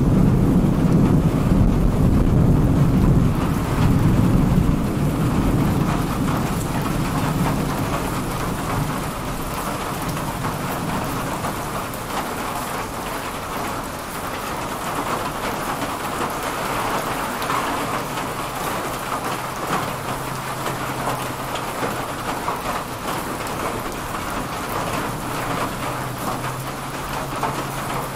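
Thunderstorm: a roll of thunder rumbles loudly for the first few seconds and fades out, leaving rain falling steadily.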